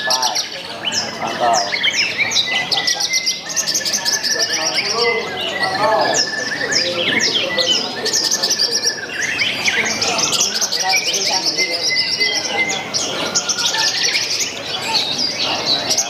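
Javan bush lark (branjangan) singing a continuous, shrill song of rapid chirps, quick downward-sweeping notes and short trills, with a few held whistles mixed in.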